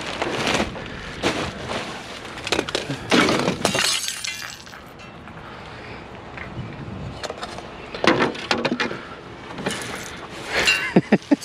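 Glass Christmas ornaments breaking and clinking on concrete, a burst of sharp cracks and tinkles in the first few seconds and more around eight seconds in. Near the end a push broom scrapes the glass shards across the pavement.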